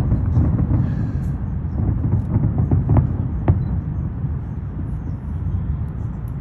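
Fireworks going off: continuous low booming, with two sharp cracks about three seconds in, half a second apart.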